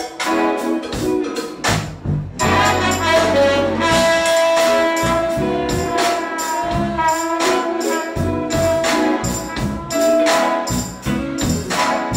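Live jazz-fusion band playing: trumpet and saxophone hold long notes over a steady drum beat, with electric bass, keyboard and electric guitar.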